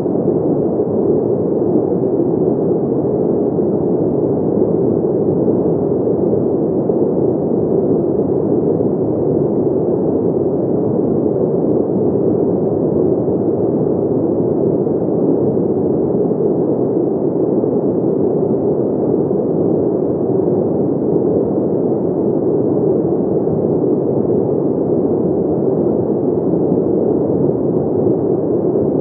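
A steady, even rushing noise, low and dull in tone, with no tones, beats or changes in level.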